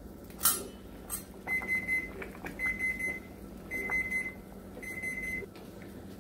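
Timer beeping four times, steady high beeps about a second apart, signalling the end of the four-minute boil for the corn. Just before, two sharp clacks as the stainless pot lid is handled.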